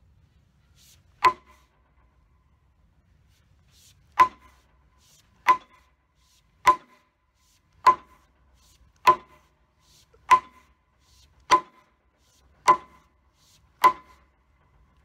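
Freshly hung vintage splitting axe being swung so that its head strikes hard, ten times. Each blow is a sharp smack with a short metallic ring, and the first stands alone before nine come at a steady pace. It is a seating test: the blows come out as a blunt smack that does not give, the sign that the head is tight on the handle.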